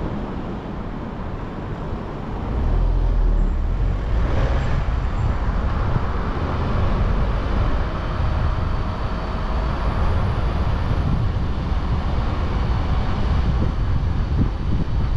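Road and traffic noise heard from a car-mounted camera while driving: a steady low rumble with wind on the microphone, getting louder about two and a half seconds in, with a brief whoosh about four seconds in.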